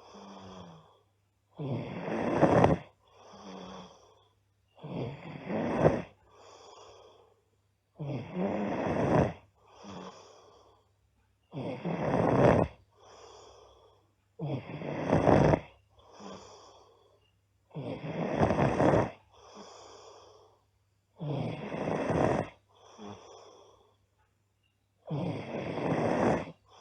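A girl snoring loudly in a steady rhythm, about one breath every three seconds: eight loud snores, each followed by a quieter breath.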